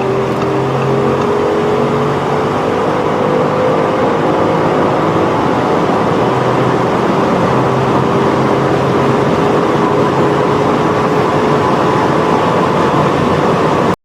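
Performance car's engine pulling hard at high speed, its pitch climbing slowly and steadily through one long gear over heavy road and wind noise, then cutting off abruptly at the end.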